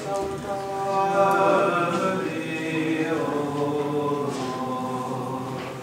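Orthodox liturgical chanting: voices sing long, held notes that glide slowly from one pitch to the next, with the phrase ending near the end.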